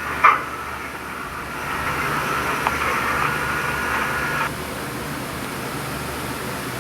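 Steady hiss-like noise with faint held tones in it, a short burst just after the start, and a slightly louder stretch in the middle.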